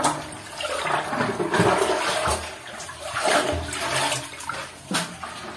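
Muddy, knee-deep water splashing and sloshing in uneven surges, with a few sharper splashes.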